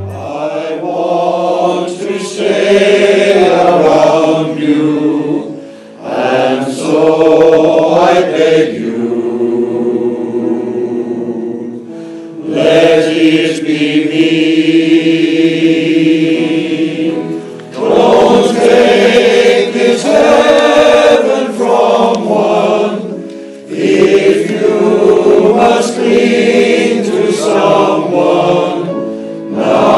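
Male voice choir singing in long held phrases, with short breaks between phrases about every five or six seconds.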